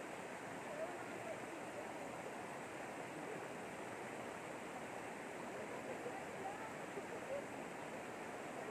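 Shallow river rushing over a rocky bed and small rapids, a steady rush of water.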